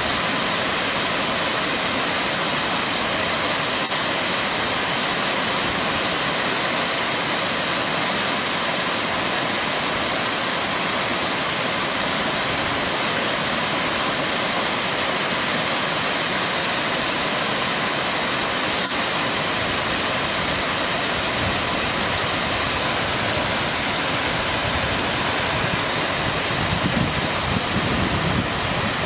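Waterfall: water pouring down stepped rock ledges in a steady, even rush. Low gusts of wind on the microphone come in near the end.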